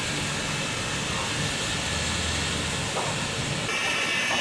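P36-class steam locomotive standing at the platform, venting steam with a steady hiss that gets a little louder and brighter near the end.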